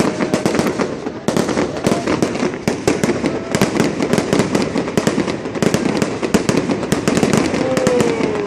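Fireworks display with dense, rapid crackling and popping: many sharp bangs in quick succession throughout.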